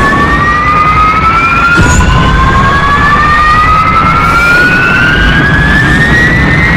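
Jet aircraft taking off, a jet-engine sound effect: several overlapping whines climb slowly in pitch over a low rumble as one jet after another launches.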